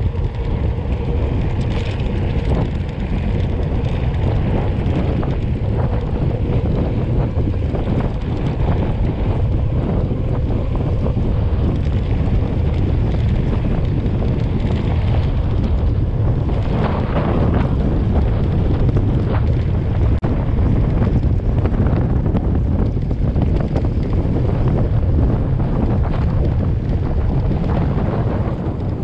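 Wind buffeting the microphone of a camera on a mountain bike in motion, a steady low rumble, over the noise of the tyres rolling on a dirt road.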